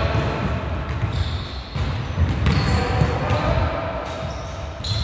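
Volleyballs being struck and bouncing on a sports-hall floor in a defence drill, a steady run of irregular thuds echoing in the hall, with voices calling.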